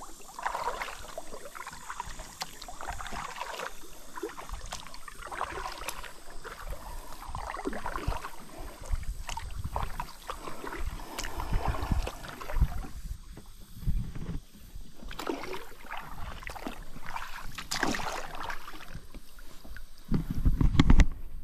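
Kayak paddle dipping and splashing in river water, with water gurgling around the hull and small knocks. A loud low rumble comes near the end.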